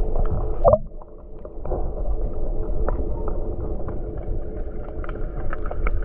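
Underwater sound beside a catamaran's saildrive propeller: the steady low hum of the boat's diesel engine carried through the water, with water noise and scattered small clicks. A brief louder swirl comes about a second in.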